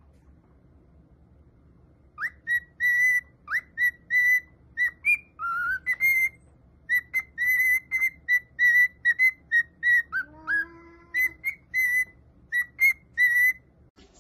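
Cockatiel whistling a run of short, clear notes at about the same pitch, roughly three a second, with a few quick upward-sliding notes among them. The whistling starts about two seconds in.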